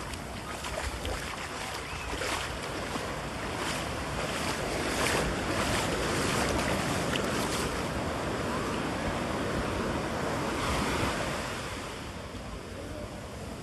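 Ocean surf breaking and its foam rushing up the sand, swelling to its loudest through the middle and easing off near the end, with wind rumbling on the microphone.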